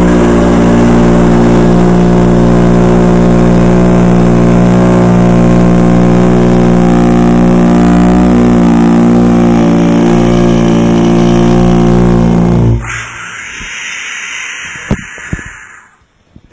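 A loud machine drone, steady and even in pitch, that cuts off suddenly about thirteen seconds in. A quieter hiss with a few sharp clicks follows.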